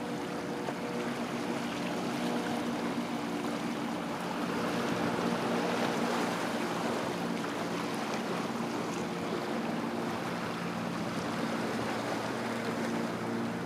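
Waves washing over a rocky shoreline, swelling about five seconds in, under a steady low hum that fades in the middle and comes back near the end.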